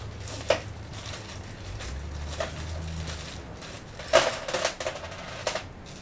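Small metal screws and washers clinking as they are handled: a few scattered sharp clicks, with the loudest run of clinks about four seconds in.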